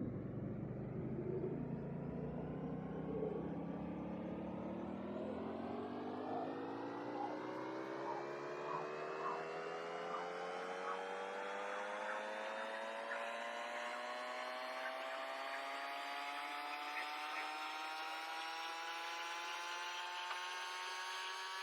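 A motor-like whir whose pitch rises slowly and steadily throughout, with faint short ticks from about five seconds in.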